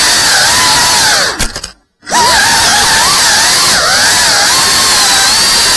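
Brushless motors and ducted propellers of a GEPRC Cinelog FPV cinewhoop, a loud whine that rises and falls in pitch with the throttle. A little over a second in, the sound fades out to silence and then cuts back in about two seconds in.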